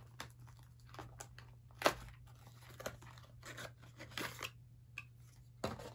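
Makeup primer packaging being opened and handled: a string of small crinkling and tearing crackles, with one sharper click about two seconds in.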